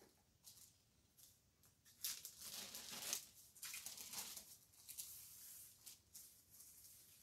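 A plastic sheet rustling and crinkling as it is handled and gathered up, a faint stretch of rustle from about two to five seconds in.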